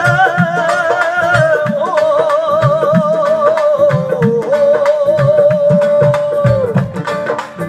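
Live Punjabi folk singing: a male voice sings a wavering, ornamented line, then holds one long note that ends near the close, over a band with steady drum beats.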